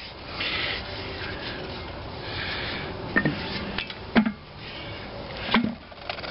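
McCormick-Deering Type M engine's flywheel turned back and forth by hand, scraping and rattling as it goes, with the crankshaft knocking against a wooden block wedged behind it three times. The knocks are jarring blows meant to break the flywheel loose on its crankshaft.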